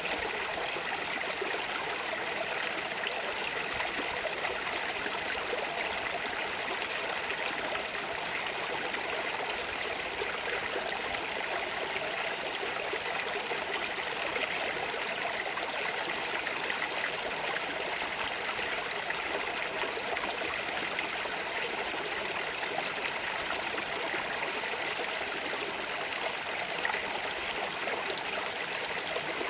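Stream of water running over stones, a steady babbling and trickling.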